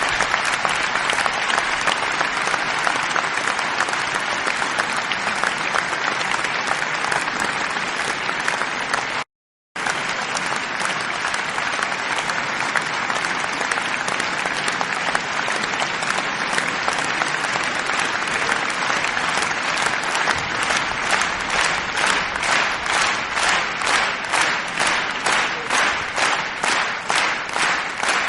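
Audience applauding, a dense crowd of clapping hands. It drops out abruptly for about half a second roughly nine seconds in. In the last third it falls into rhythmic clapping in unison, about two and a half claps a second.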